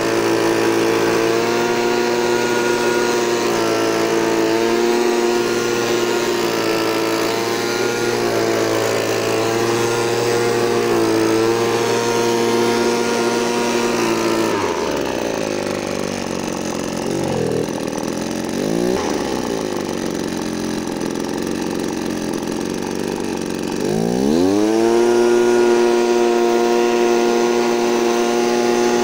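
Husqvarna 525 BX handheld leaf blower's two-stroke engine running at high revs, throttled down to a low, wavering idle about halfway through, then revved steeply back up to full throttle about five seconds before the end.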